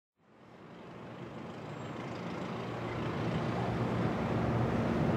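Distant harbour and road traffic ambience: a steady low engine rumble under a haze of noise, fading in from silence.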